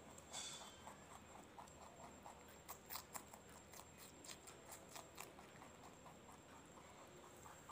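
Domestic rabbits chewing leafy greens: a faint, quick, regular run of crunching ticks, with a few sharper clicks in the middle.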